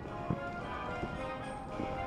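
Music playing, with a few soft firework pops, about three in two seconds.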